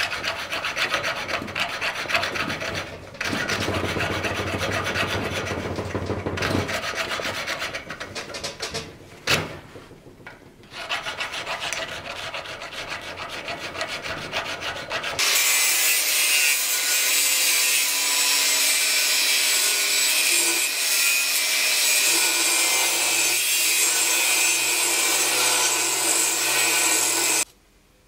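A hand tool rasping back and forth on a metal sword pommel in uneven strokes. About fifteen seconds in, this gives way abruptly to a steady, loud, hissing machine noise that cuts off sharply near the end.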